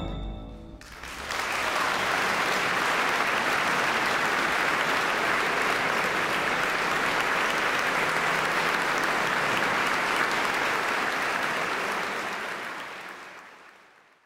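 Applause from a crowd, dense and steady, fading away near the end.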